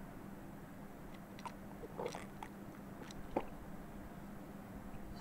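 A few faint clicks and taps of small objects handled on a tabletop, spread over a couple of seconds, over a low steady hum.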